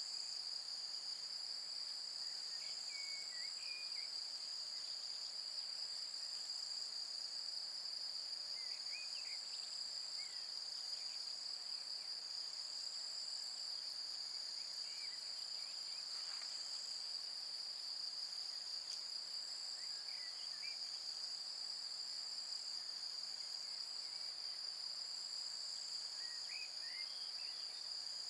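A steady, high-pitched insect chorus: a continuous buzz with a faster pulsing layer above it. Short chirping calls come through about every six seconds, five times in all.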